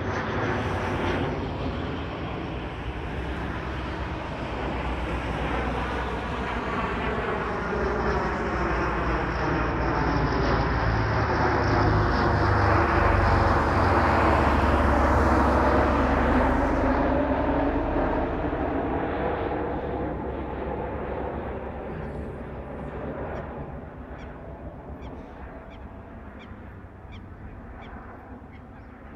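Military turboprop transport aircraft passing overhead. Its engine drone grows louder to a peak about halfway through, then fades away as the plane departs.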